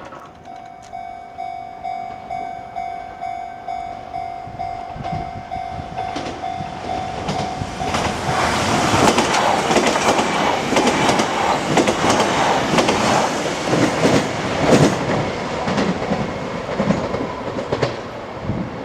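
Japanese level-crossing warning bell ringing in a rapid, steady repeating ding. About eight seconds in, a Kintetsu Minami Osaka Line train passes over the crossing with a loud rush, its wheels clattering over the rail joints and burying the bell.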